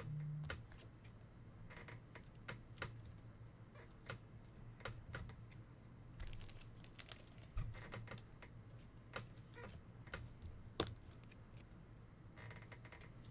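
Scattered light clicks and taps at an uneven pace from hands working at a table, with one or two sharper knocks about eight and eleven seconds in, over a faint steady low hum.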